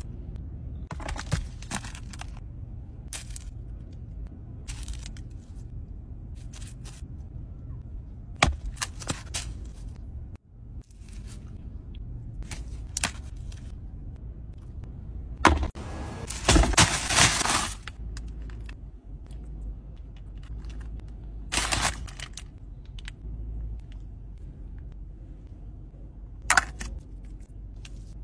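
Crunchy eating sounds: a plastic spoon scraping through a crisp flake-topped dessert and bites of it crackling and crunching in short bursts, with a louder stretch of crackling a little past halfway.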